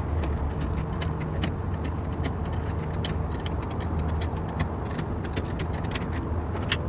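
A 10 mm nut on a truck-bed mount being tightened with a wrench: light, irregular metal clicks over a steady low hum.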